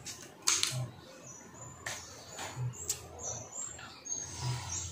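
Birds chirping: short, high chirps scattered throughout, with a few sharp clicks, the loudest about half a second in, and a faint low thump about every two seconds.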